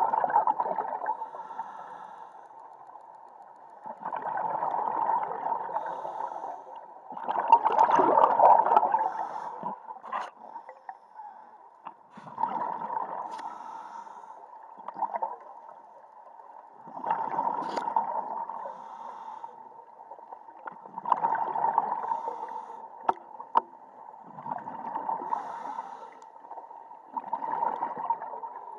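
Scuba diver breathing underwater through a regulator: bursts of exhaled bubbles come about every four to five seconds, with quieter stretches between them. A faint steady tone runs underneath, and there are a few sharp clicks.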